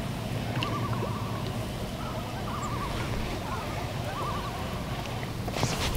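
Short warbling bird calls, repeated about five times, over a steady low hum of wind and water.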